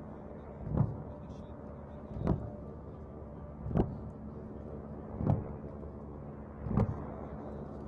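Fireworks going off in a regular sequence: five short bangs, each swelling up over a fraction of a second, evenly spaced about one and a half seconds apart over a steady low rumble.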